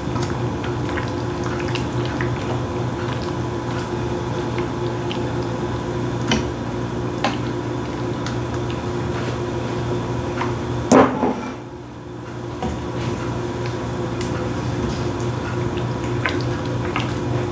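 Thick creamy cheese sauce with broccoli simmering in a pan on the stove, bubbling with many small wet pops over a steady low hum. A brief louder sound comes about eleven seconds in.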